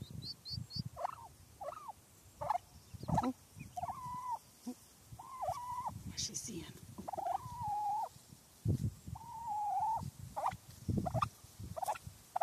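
Wild turkey hen giving her danger call: a repeated series of calls, short at first, then several drawn-out ones each lasting up to about a second, warning her chicks to hide. A few quick high peeps from the chicks come right at the start.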